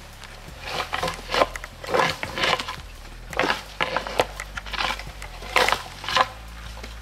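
Footsteps crunching and snapping through dry brush and twigs on the forest floor, a dozen or so irregular crunches.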